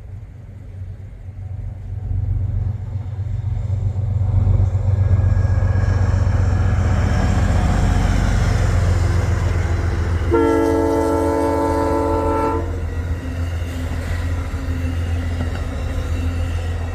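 O gauge model train running along the track with a steady low rumble of wheels and motors, building over the first few seconds. About ten seconds in, the locomotive's sound-system horn gives one chord held for about two seconds.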